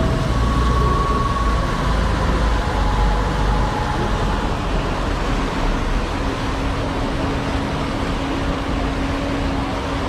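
Tour boat's engines running at cruising speed with the churn of its wake at the stern: a steady low rumble under a rushing wash of water, and a faint steady tone coming in about six seconds in.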